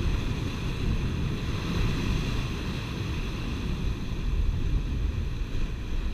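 Sea surf breaking and washing over shore rocks, a steady rush of water, with wind buffeting the microphone.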